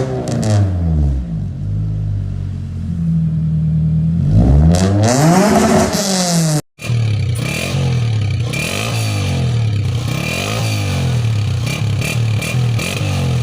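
Honda CG 125 motorcycle's single-cylinder four-stroke engine revved repeatedly, the pitch climbing and falling with each blip of the throttle. The sound breaks off for a moment about halfway through, then resumes with a quicker run of blips.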